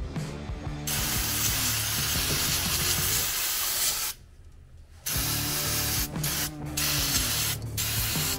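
Aerosol cleaner sprayed from a can over a carburettor to degrease it: a hiss of about three seconds, a one-second pause, then more spraying broken by a few brief stops.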